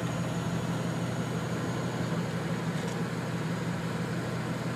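Vehicle engines idling, a steady low hum with no change in pitch.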